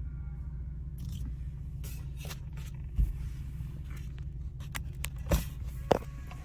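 Car engine idling, a steady low rumble heard inside the cabin, with a few rustles and three sharp knocks about three, five and six seconds in.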